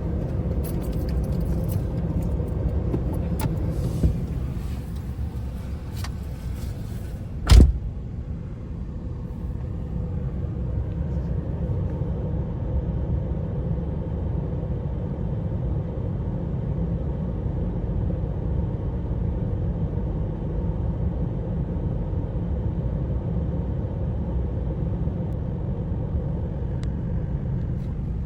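Motor vehicle engine running with a steady low rumble. There are a few light clicks early on, and one loud bang about seven and a half seconds in.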